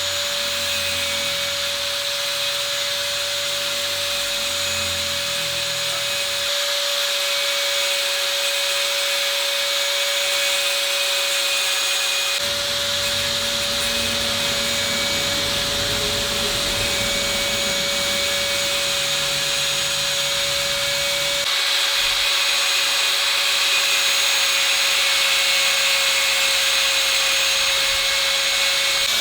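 Electric grinder running with a steady whine, grinding metal while a knife is reworked from scrap. The sound changes abruptly three times.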